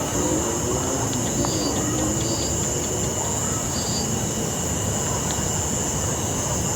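Steady, shrill insect drone, like cicadas or crickets, over a low continuous rumble, with a few short high chirps in the first half.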